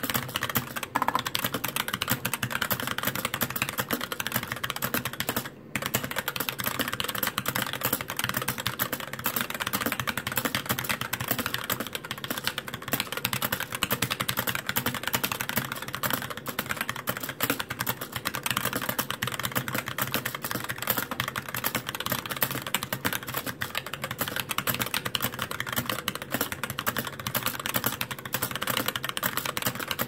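Fast touch-typing at over 100 words per minute on a Satan GH60 60% mechanical keyboard with light 35 g Gateron Clear linear switches and ABS doubleshot keycaps: a dense, continuous clatter of key strokes. The space bar, held by a single stabilizer bent back in under the plate, rattles.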